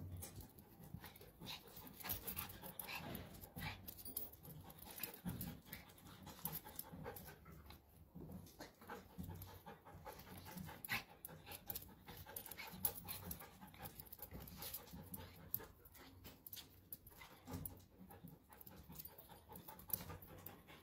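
Two small dogs play-wrestling on concrete: quiet panting with an irregular run of short scuffles and clicks from their paws.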